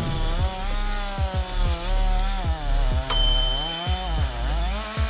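Stihl MS 361 two-stroke chainsaw running while cutting a mature oak, its engine pitch wavering under load and dipping briefly about four seconds in.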